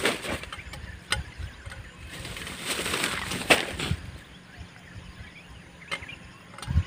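A plastic bag rustling and crinkling as it is handled, loudest in a stretch near the middle, with a few sharp clicks.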